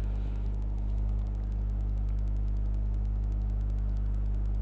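Steady low-pitched hum with a faint, regular ticking above it.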